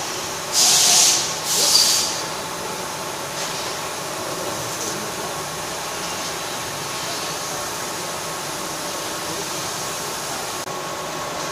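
Amada LC 2415 Alpha III 1500 W CO2 laser cutting machine running: two short, loud hisses about half a second and a second and a half in, then a steady machine hum with a faint high tone while the head cuts sheet metal.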